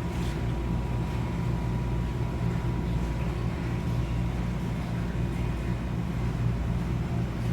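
A running vehicle: a steady low engine hum with rumble, and a faint steady high tone above it.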